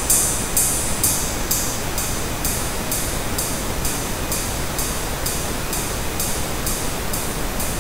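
A looped ride cymbal sample is struck about twice a second over a steady bed of pink noise. Its harsh top end is being cut with an equaliser, so the strikes turn duller after about a second.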